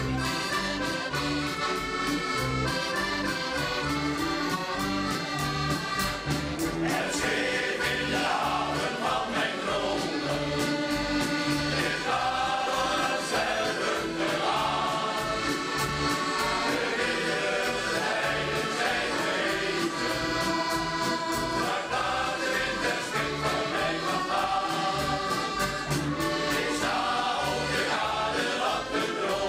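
Shanty choir singing with several accordions and a steady drum beat; the accordions open and the choir comes in after several seconds.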